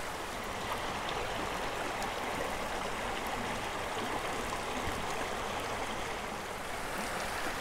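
Small, shallow creek running steadily over a gravel bed: an even wash of flowing water.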